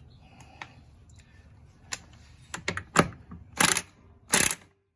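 Cordless impact wrench tightening the front variator nut, in short sharp bursts. A few light clicks about two seconds in are followed by two loud bursts near the end.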